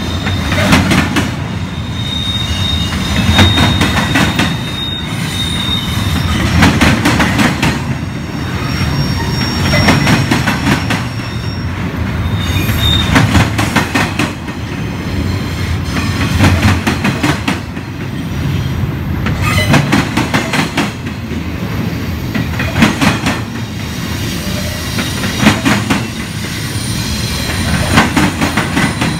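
Double-stack intermodal container train rolling past: clusters of wheel clacks over the rail joints every second or two as each car's trucks go by, over a steady rumble, with a thin high wheel squeal that comes and goes.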